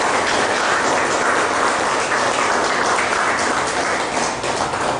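Audience applauding, a steady mass of handclaps.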